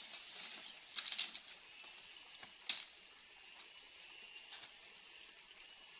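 Footsteps crunching through dry leaves and undergrowth, with a rustle about a second in and a single sharp snap, like a twig breaking, near the middle.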